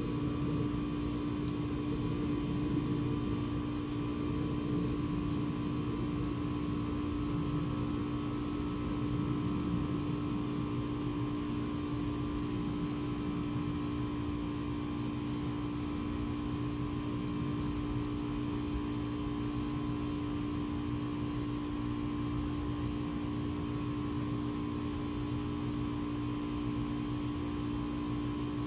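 A steady, unchanging hum made of several held tones over a low rumble, with no clear clicks or other events.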